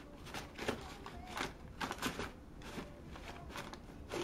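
Crumpled brown wrapping paper crinkling and rustling in a cardboard box as a cat shifts about in it, in a string of short, uneven rustles.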